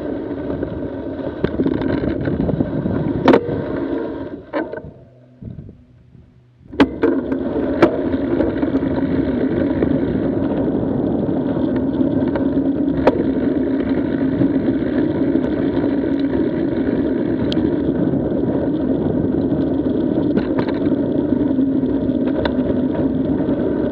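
Mountain bike riding a dirt trail: steady rumble of tyres and wind on the microphone, with a few sharp knocks and rattles from the bike. The noise drops away briefly about five seconds in, then resumes.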